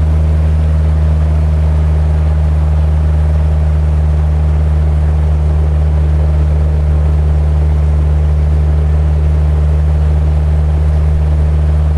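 Motorboat engine running steadily at cruising speed, a constant low drone, with water rushing and splashing along the hull.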